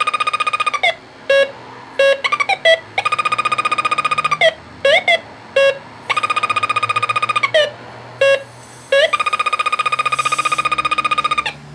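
Snap-on ACT 5500 halogen refrigerant leak detector sounding its alarm. There are four long bursts of fast, high-pitched beeping, each one to two seconds long, with short single chirps between them. The detector is picking up the refrigerant gas from a nearly empty can of duster held at its probe.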